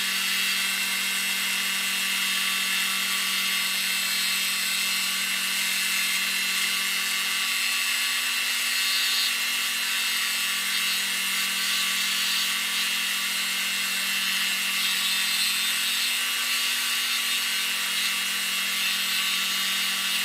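Dremel 4300 rotary tool running steadily at a constant pitch, its bit grinding into a block of red cedar. The grinding hiss swells now and then over the whine of the motor.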